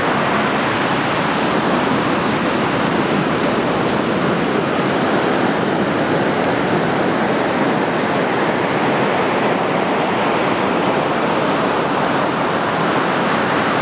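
Surf breaking on a sandy beach: a steady, even rush of waves.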